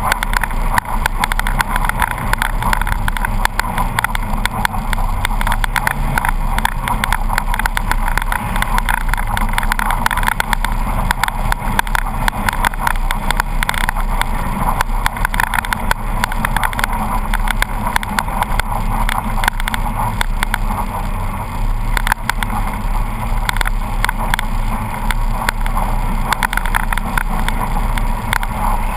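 Polaris RZR 800 side-by-side's twin-cylinder engine running steadily, heard from on board, with constant rattling and knocking from the machine jolting over a rough snowy track.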